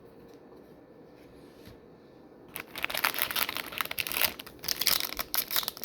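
Wrapper of a Topps Chrome trading-card pack crinkling and tearing as it is opened, starting about two and a half seconds in; before that only quiet room tone.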